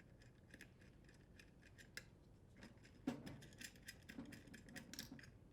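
Faint, irregular small metallic clicks and ticks from a nut driver unthreading the small nut on a vent hood's grounding wire. A few light knocks come about three seconds in and again a little later.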